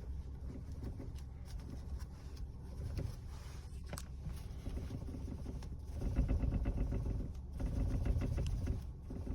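Kia Rio X-Line cabin on a rough road: low tyre and road rumble with a tinny rattling knock from the front, like a pot clanging, which the owner suspects is the steering rack. The knocking gets louder and faster about two thirds of the way in, as the car goes over bumps.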